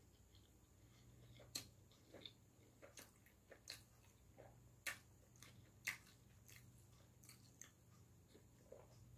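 Quiet close-miked eating sounds from a beef, egg, pepper jack and greens wrap being folded in the hands and chewed: a scattering of short crisp crackles and soft wet clicks, about a dozen, over a faint steady low hum.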